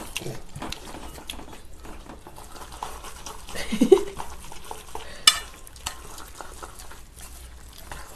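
Buckwheat cold noodles and thick spicy sauce being mixed with chopsticks and a spoon in stainless steel bowls: wet squelching with light clinks of metal against the bowl, and one sharp clink a little after five seconds in. A brief laugh comes about four seconds in.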